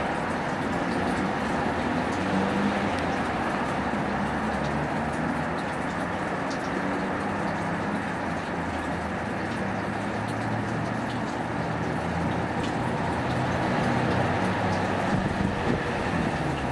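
Steady rumbling background noise with a low hum.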